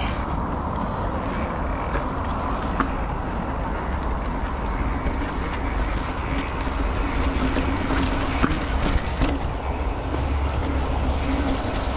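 Steady wind and road noise on the microphone of a moving bicycle, with heavy low rumble and a few small clicks. A low hum comes in during the second half and fades near the end.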